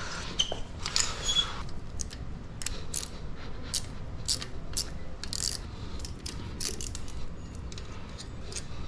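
Irregular light metallic clicks of a 5 mm Allen key working the pinch bolt on a dirt bike's gear shifter, undoing it.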